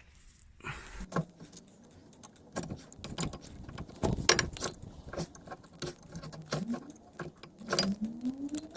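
Metal clinks, rattles and knocks of a car's brake caliper, pads and hand tools being handled, in separate sharp strikes with the loudest about four seconds in, and a short rising tone near the end.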